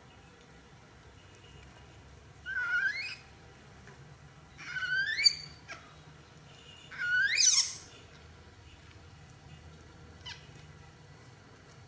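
A tiny baby monkey crying out three times, each a high call that rises steeply in pitch, with a short faint cry near the end.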